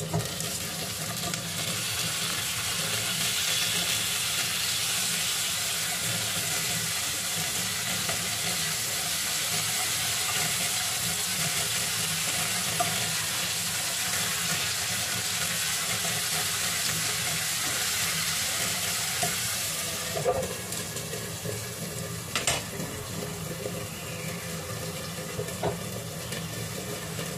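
Bell pepper and eggplant pieces topped with minced fish frying in oil in an uncovered pan, sizzling steadily. About twenty seconds in there are a few sharp knocks, and the sizzle drops as the glass lid goes back on.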